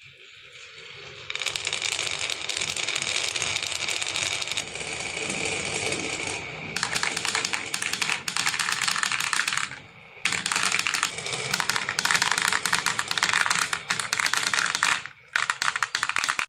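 Marbles clattering down a wooden marble-run track: a dense, rapid rattle of clicks that stops briefly twice.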